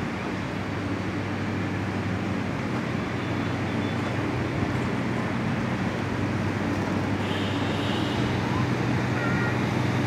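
Passenger train coaches rolling slowly along the track, with a steady diesel engine hum underneath.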